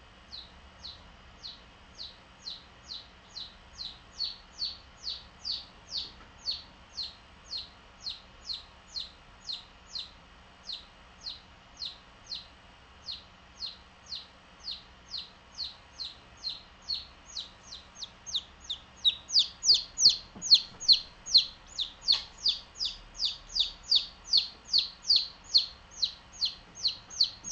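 A baby chick peeping over and over, each peep a short, high, falling chirp, about two to three a second, getting louder about two-thirds of the way through. This is the steady distress peeping of a chick that wants attention.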